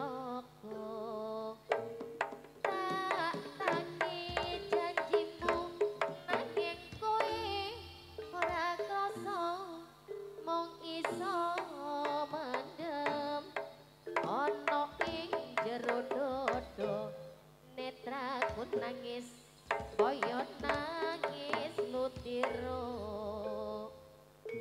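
Live jaranan ensemble music: a wavering pitched melody over repeated hand-drum strokes, with a few short breaks in the phrasing.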